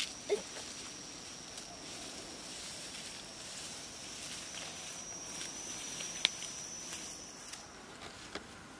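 A steady, high-pitched insect drone that stops shortly before the end, with a few sharp clicks and light footsteps through grass and brush, the loudest click about six seconds in.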